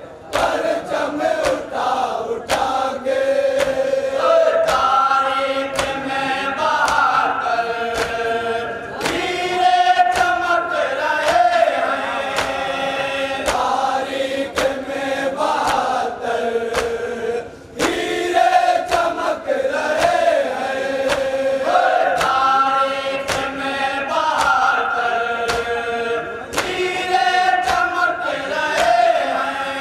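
A group of men chanting a noha, a Muharram lament, led by one voice with the others joining, over sharp rhythmic slaps of chest-beating (matam). The chant breaks off briefly just past halfway, then carries on.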